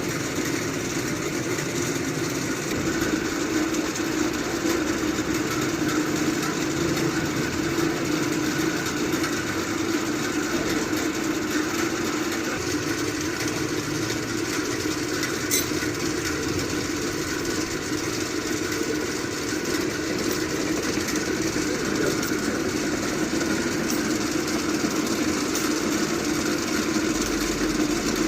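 A steady, unbroken hum of a running motor or engine, with no change in speed.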